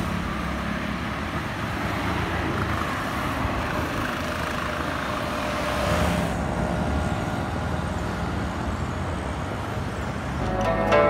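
Road traffic: cars passing on a paved road, a steady rush of engine and tyre noise. Faint plucked-string music comes in about six seconds in and grows louder near the end.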